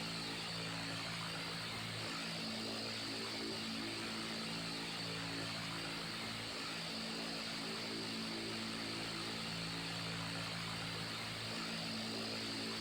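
Electric fan running steadily: an even rush of air over a low motor hum that slowly swells and fades.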